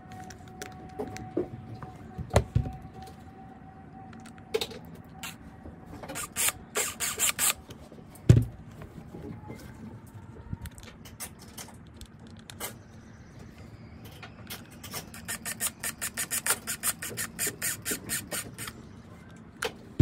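Hard plastic rod buckle parts being handled and fitted together by hand: scattered clicks and knocks, two heavier thumps, and a quick run of about six clicks a second in the last third.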